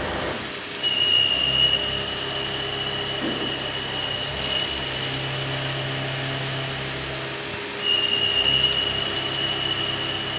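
Machine-shop noise from running CNC machinery: a steady low hum under a high, even whine that sets in about a second in, with louder stretches of noise about a second in and again near eight seconds.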